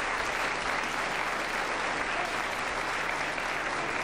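Studio audience applauding: steady, sustained clapping from many hands.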